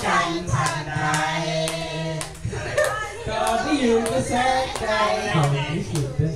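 A group of people singing together, with hand claps.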